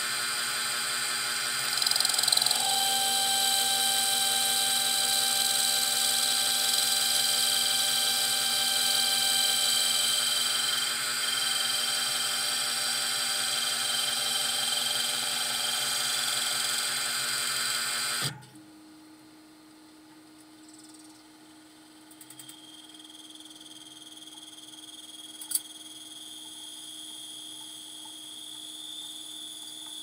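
Metal lathe running steadily while turning a bicycle sprocket down to width, a whine made of many steady tones. It stops abruptly about 18 seconds in, leaving a much quieter steady hum with a single click near 25 seconds.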